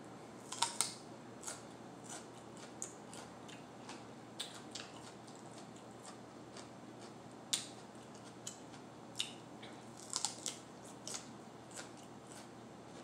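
Crisp crunching and chewing of a raw mini sweet pepper stuffed with cream cheese: sharp, irregular crunches, with a quick cluster about ten seconds in.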